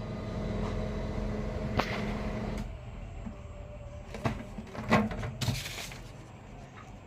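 HP LaserJet M1005 printer running its internal motor with a steady hum for about two and a half seconds, then stopping, as during its start-up. Several sharp plastic clicks and a short rustle follow.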